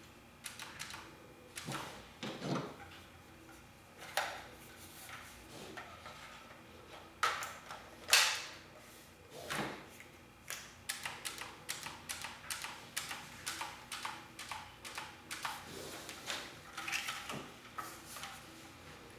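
Hard plastic and metal parts being handled: scattered knocks and clicks, the loudest about eight seconds in, then a run of light clicks at about three to four a second.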